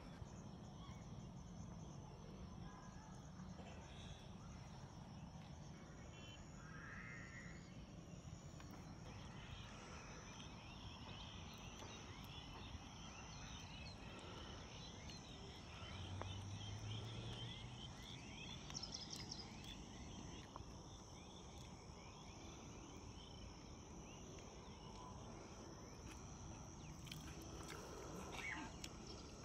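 Faint outdoor background with scattered short animal calls, chirps that come and go.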